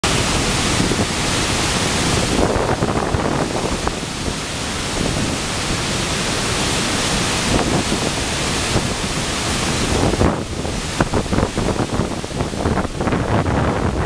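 Water pouring over a sabo (erosion-control) dam in heavy flow, a loud, steady rush of falling water. After about ten seconds it turns uneven, with wind buffeting the microphone.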